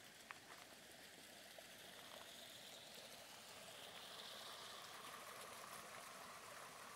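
Faint trickling and babbling of a small stream, a little louder from about halfway through.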